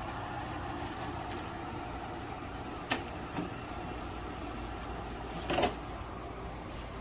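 Portable air conditioner running with a steady hum and low drone. A sharp click comes about three seconds in and a louder short knock about five and a half seconds in.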